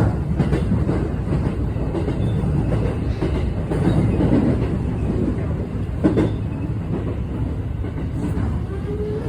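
Interior running noise of a JR West 321 series electric train: a steady low rumble with irregular knocks, the abnormal noise that the uploader wonders is a rain-caused fault such as wheel slip. The sharpest knock comes about six seconds in, and a steady motor whine starts near the end.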